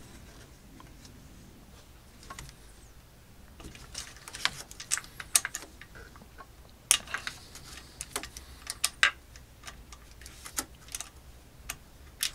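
Hand tools clicking on the bolts of a BMW K1600 engine's cam chain tensioner as they are loosened. The sharp clicks and ticks come sparse at first, then thick and irregular from about four seconds in.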